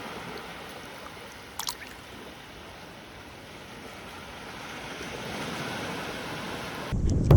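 Surf washing steadily onto the shore, with a small click about a second and a half in. Near the end, wind suddenly starts buffeting the microphone with a loud low rumble.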